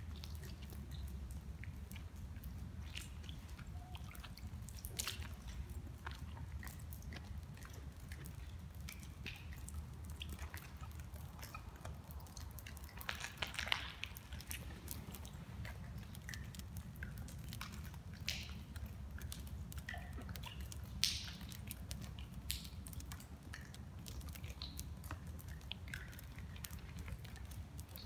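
Footsteps crunching and scuffing over grit and rubble on a wet concrete floor: scattered small crackles and clicks, with a few sharper ones, over a steady low rumble.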